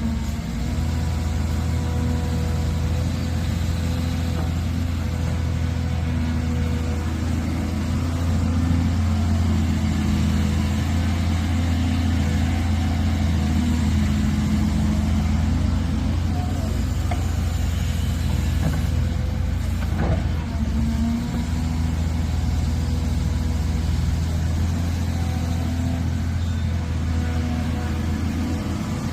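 A construction machine's engine running steadily at a constant speed with an even low hum.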